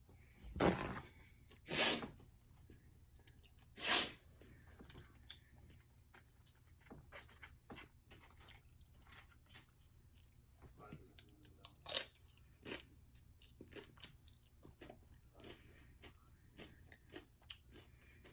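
Biting and chewing crunchy Doritos nachos close to the microphone: four loud crisp crunches, near the start and about twelve seconds in, with softer crackling chews between them.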